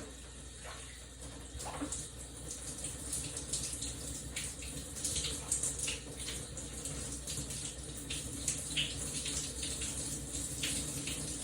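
Shower running: a steady hiss of falling water broken by irregular splashes, a little louder from about two seconds in.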